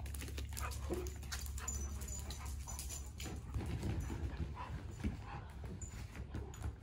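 Two dogs, a bulldog and a Vizsla, play-fighting: many quick claw clicks and scuffles on a concrete floor, with a few short dog vocal sounds.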